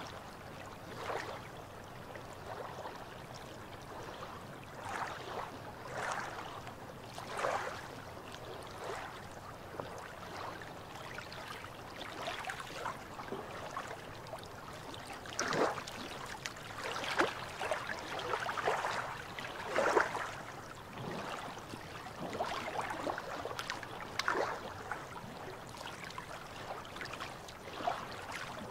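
Gentle sea water lapping and splashing against shoreline rocks: irregular small splashes and gurgles over a soft steady wash, busier in the middle stretch.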